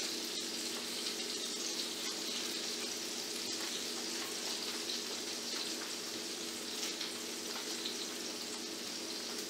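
Steady hiss like a pan sizzling, with a steady low hum underneath and a few faint light clicks from burgers being handled on a plate.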